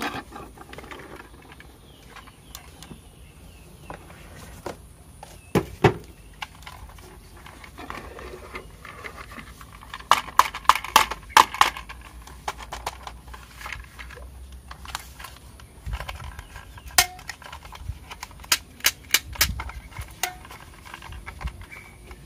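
Hard plastic parts of a battery-operated toy cow clicking and knocking as they are handled and fitted to its body. There are quick runs of sharp clicks about ten seconds in and again near the end.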